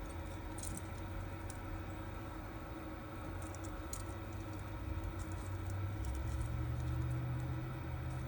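Faint small clicks and scratches of tiny screws and plastic parts being handled and driven into an RC car's transmission mount, over a steady low hum that steps up in pitch about six seconds in.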